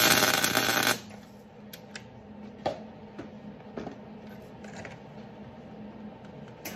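MIG welder arc crackling in a burst of about a second as a stud is welded into an exhaust flange, then stopping. After it, a steady low hum with a few scattered clicks and taps.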